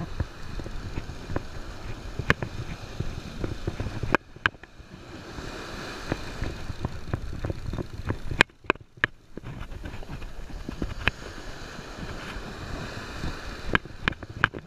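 Wind buffeting the microphone over breaking surf, with scattered sharp clicks and knocks from handling the rod and conventional reel as it is cranked, a quick cluster of them about two-thirds of the way through.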